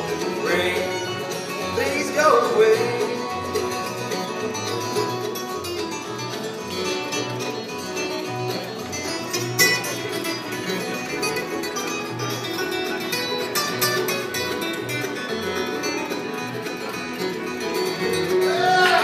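Bluegrass band playing live: banjo, acoustic guitars, mandolin, fiddle and upright bass, the bass keeping a steady beat of about two notes a second underneath.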